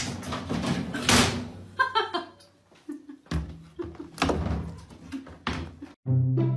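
A series of knocks and bangs as a cat clambers in and out of a top-loading washing machine's tub. Music starts just before the end.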